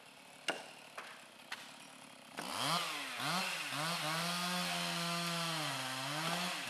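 A few sharp knocks about half a second apart, then a two-stroke chainsaw revs up in three quick blips and runs at high speed, its pitch dipping briefly near the end as it cuts into a felled trunk.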